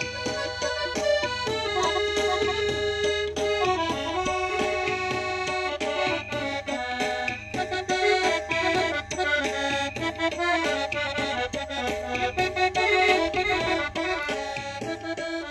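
Piano accordion playing an instrumental Pashto folk melody, with held notes and a moving tune.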